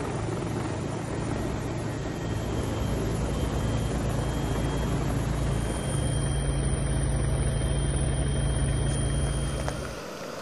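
Steady low drone of a helicopter's rotor and engine, dropping away near the end.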